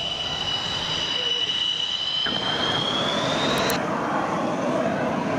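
JF-17 Thunder's single RD-93 turbofan on the landing rollout, a steady high jet whine that rises slightly in pitch. About three and a half seconds in, the whine stops abruptly and gives way to a broader, lower rushing engine noise.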